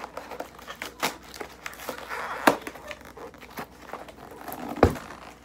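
Taped cardboard box being pulled open by hand: tape tearing and cardboard flaps crinkling and scraping in irregular rustles and clicks, with two sharp snaps, one about halfway through and one near the end.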